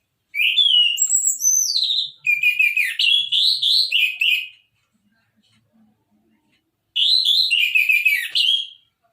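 Orange-headed thrush singing loudly: two long phrases of quick, varied whistled notes sliding up and down. The first lasts about four seconds, and the second starts about seven seconds in.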